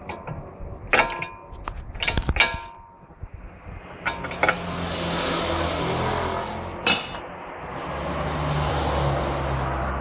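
Metal hand tools clinking against the castle nut and cotter pin on a car's front steering knuckle, several sharp clinks in quick succession about one to two and a half seconds in and one more near seven seconds. Between them a longer steady noise swells and fades twice.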